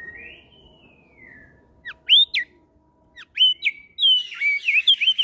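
Crested darkeye (opior jambul) singing. It gives one long whistled note that rises and then slowly falls, then a few sharp upward-sweeping notes, and near the end a quick run of dipping and rising whistles.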